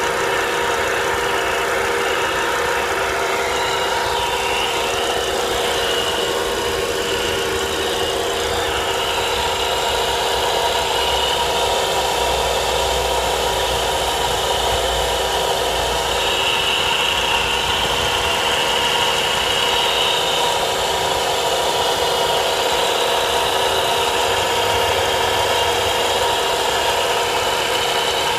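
Volvo V70R's turbocharged five-cylinder engine idling steadily, with steady whining tones running through it. The strange noise is one the owner traces to the alternator, probably a bad bearing, since it goes away with the serpentine belt removed.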